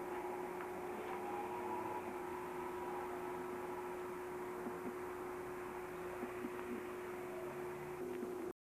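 Steady hum with one constant tone over a background hiss and a few faint ticks, cutting out abruptly for a moment near the end.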